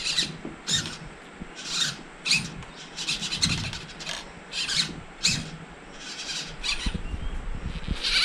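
Large RC steering servo driving 3D-printed spur gears that swivel an electric trolling motor's shaft, moving in about a dozen short, irregularly spaced bursts as the transmitter's steering wheel is turned back and forth.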